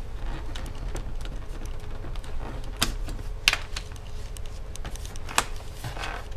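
Aluminium MacBook laptop being handled: its lid is shut and it is moved on the desk, giving a series of light clicks and knocks. The sharpest click comes about halfway through and another shortly before the end.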